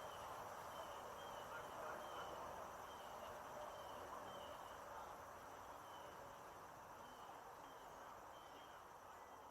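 Small brook babbling over stones, a faint steady rush of water. A short, high chirp repeats about once a second over it.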